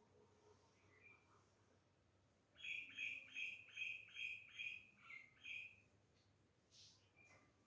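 Animal chirping: a run of about eight quick, evenly spaced chirps, a little under three a second, lasting about three seconds.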